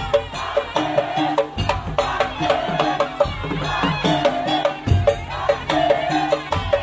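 Live traditional folk music: a steady beat of short pitched percussion strikes with drums under a wavering melody line.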